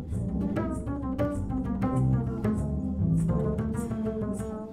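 Upright double bass played pizzicato: a run of plucked notes, two or three a second, each ringing on after the pluck.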